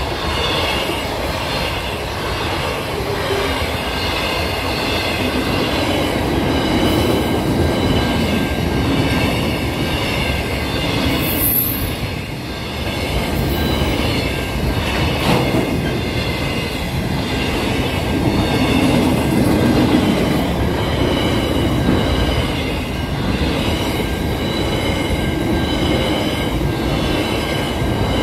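Freight train wagons rolling steadily past at a level crossing: a continuous rumble of wheels on the rails, with faint high tones running over it.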